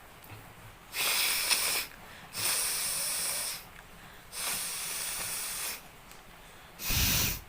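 A woman blowing her nose forcefully four times, clearing mucus. Each blow is a hissing rush of air about a second long; the last, near the end, is shorter and deeper.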